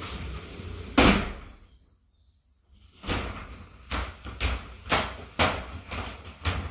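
A PVC folding shower door being worked: one loud bang about a second in as it shuts against its frame, then a run of short clicks and knocks as the pleated panels are folded open.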